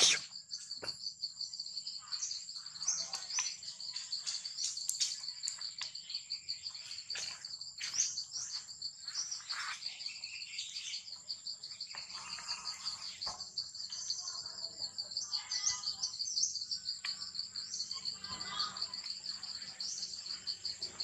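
Steady, high-pitched insect chorus trilling in rapid pulses, with scattered short rustles and clicks and a few faint chirps.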